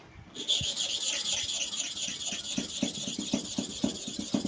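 Fast to-and-fro rubbing strokes on a super hard manual sharpening stone, about four a second, with a steady gritty hiss; it starts about half a second in.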